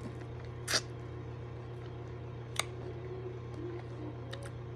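Mouth sounds of eating a pickle coated in corn starch: one short crunch under a second in, then a sharp click about two and a half seconds in and a few faint clicks while chewing, over a steady low hum.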